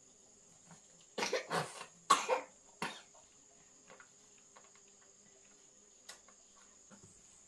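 A person coughing several times in quick succession, then a sharp click. A faint steady high-pitched whine runs underneath.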